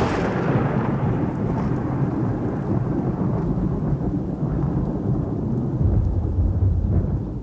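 Thunder rumbling long and low as the tail of a strike that cracked just before. The rumble swells deeper and louder near the end, then falls away sharply.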